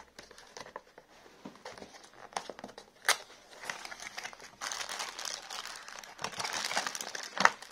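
Clear plastic packaging bags crinkling and rustling as they are handled, denser over the second half, with the rustle of a small cardboard box being opened and a few sharp clicks.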